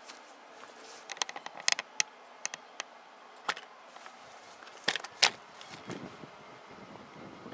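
Short, sharp metallic clicks and clinks: a quick cluster about a second in, a few single ones later, then some softer knocks near the end.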